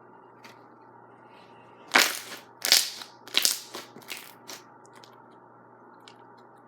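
Slime being squeezed and squished by hand, a run of about five loud crackling squishes in a couple of seconds.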